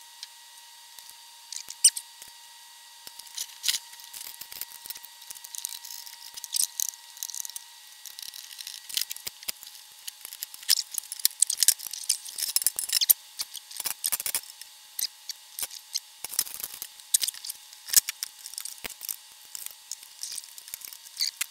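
Irregular clicks, scrapes and rattles of hand work in an aluminium electronics chassis: wires and small metal parts being pulled loose and handled, with pliers scraping against the sheet metal. The clatter gets busier from about four seconds in.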